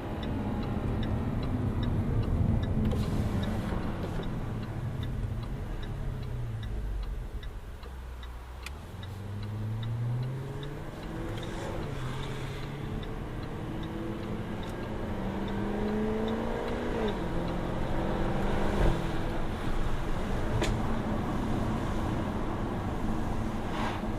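Jaguar F-Type R's supercharged 5.0-litre V8 pulling through the gears, revs rising and falling with each shift; it eases off about eight seconds in, then accelerates again. A sharp exhaust crack about nineteen seconds in, and a light regular ticking, about three a second, through the first eight seconds.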